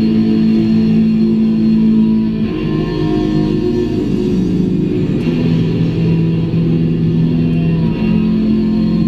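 Rock music with guitar, loud held chords that change every two to three seconds.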